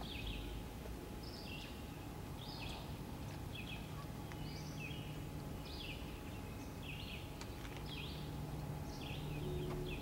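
Short high chirps repeated evenly about once a second, each stepping down in pitch partway through, over a low steady background rumble.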